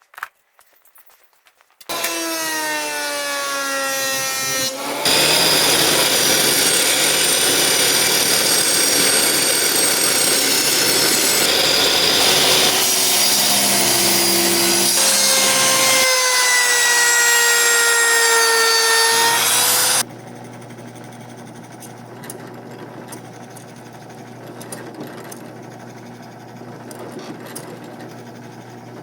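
Woodworking power tools cutting and shaping purpleheart wood. A motor runs under load with its pitch sagging, then loud cutting or sanding for about fifteen seconds. After that comes a much quieter steady machine hum with light ticks.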